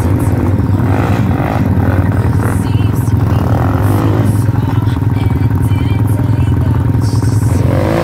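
Dirt bike engine running at a steady low note while the bike is ridden through a flooded, muddy trail.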